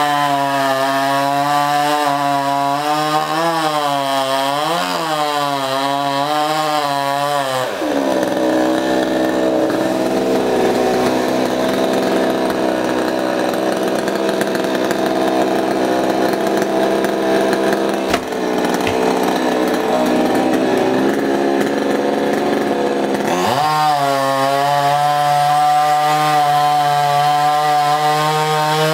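Chainsaw cutting into a coconut palm trunk at full revs, its pitch wavering as the chain bites. About eight seconds in it drops to a slower, rougher run for some fifteen seconds, then revs back up near the end to cut again.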